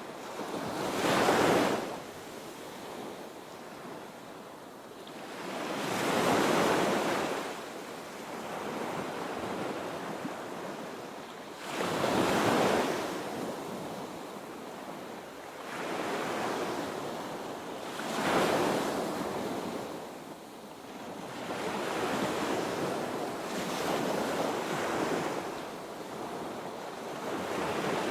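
Ocean waves breaking on a beach: a loud crash and wash about every six seconds, four clear breaks, then gentler, longer washes near the end.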